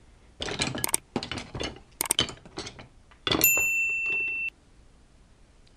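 Subscribe-reminder overlay sound effect: a run of short, sharp clicks and clinks, then a steady, high bell-like ding about three and a half seconds in that holds for about a second and cuts off sharply.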